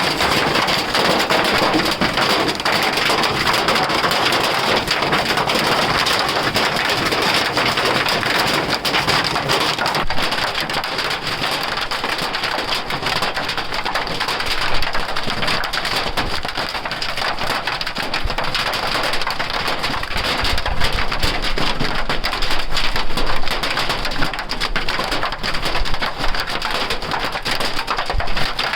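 Hailstones pelting down steadily in a dense, continuous patter of small impacts.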